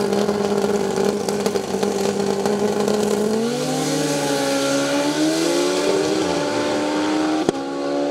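Two drag-racing motorcycles held at steady revs on the starting line, then launching about three seconds in and accelerating hard away. The engine note climbs and dips briefly twice as they shift up.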